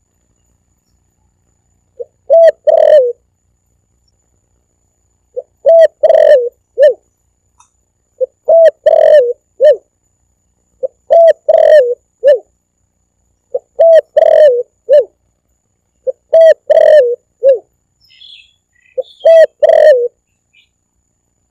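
Spotted dove (tekukur) cooing in a loud recorded lure call: seven phrases of coos about every three seconds, each a quick run of notes ending in a short separate lower note. A few faint high chirps come just before the last phrase.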